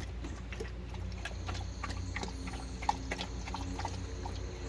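Dogs' claws clicking and tapping irregularly on a wooden deck as the dogs move about, over a steady low hum; one sharper knock comes about three seconds in.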